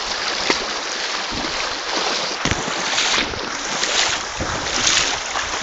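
Small stream running over rocks: a steady rushing of water that swells slightly now and then.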